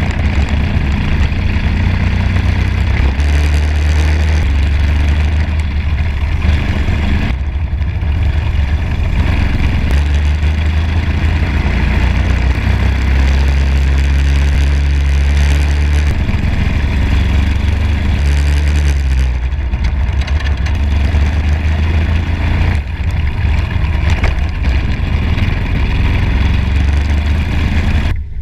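Racing kart engine running hard through laps, heard onboard over steady wind and road noise, with its note shifting every few seconds.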